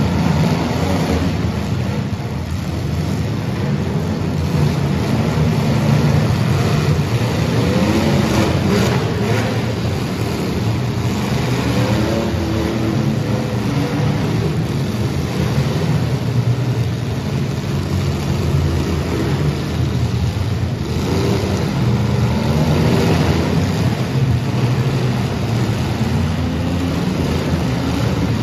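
Engines of compact demolition derby cars revving up and down as they drive and ram, with a few knocks of impacts.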